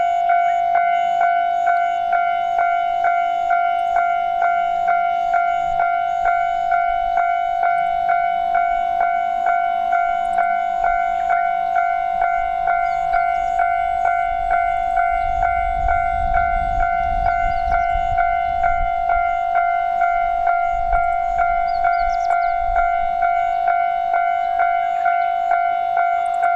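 Japanese railway level-crossing warning bell ringing "kan-kan" at an even pace, about two strikes a second. Partway through, a low rumble from a train passing over the crossing rises under the bell and fades again.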